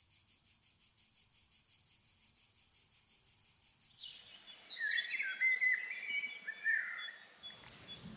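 A steady, evenly pulsing high trill of insects, with a songbird singing a string of quick, gliding phrases from about four seconds in.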